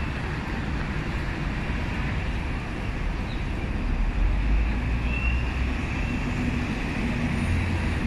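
Steady low rumbling background noise, strongest in the deep bass and a little louder about halfway through.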